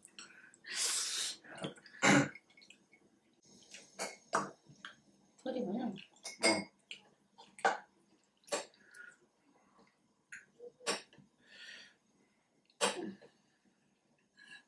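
Serving tongs and a ladle clinking and scraping against a steel hotpot pot and small bowls as the hotpot is served out, in scattered sharp clicks with pauses between them. A short breathy noise comes about a second in.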